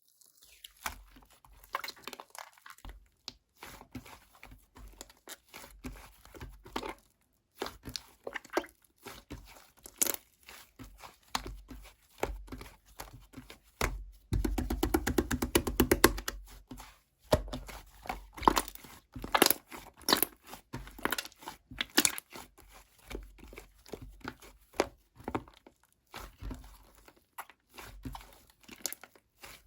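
Clay-mixed slime being squished and stretched by hand, giving a steady run of sticky clicks and crackling pops, with a dense, louder flurry of pops about halfway through.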